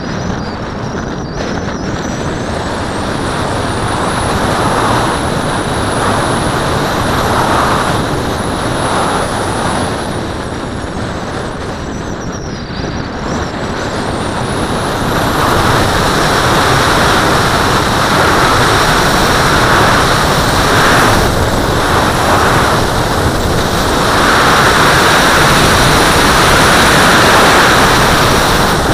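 Airflow rushing over an RC glider's fuselage and the onboard camera in flight, steady and loud, with a faint high whistle that rises and falls in the first half. It grows louder from about halfway through as the glider noses down and picks up speed.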